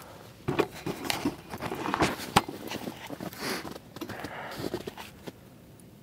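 Irregular crunching and rustling close to the microphone, with several sharp clicks, starting about half a second in and stopping after about five seconds.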